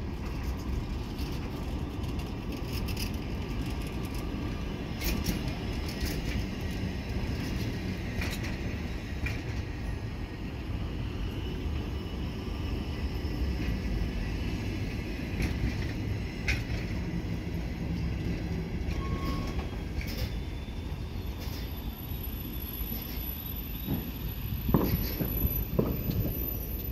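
Passenger train coaches rolling past at a platform: a steady low rumble of wheels on rail with irregular knocks as the wheels cross rail joints. A thin, high-pitched wheel or brake squeal joins near the end, and the knocks get louder as a coach passes close by.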